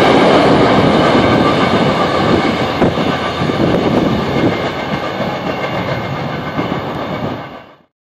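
Freight train's covered hopper cars rolling past on the rails with a steady clatter, growing quieter as the end of the train moves away, then fading out to silence near the end.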